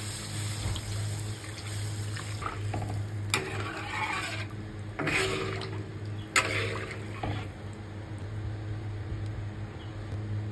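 Water poured in a thin stream into the broth in a wok, splashing steadily, louder in two spells in the middle, with a sharp knock at the start of the first and at the end of the second.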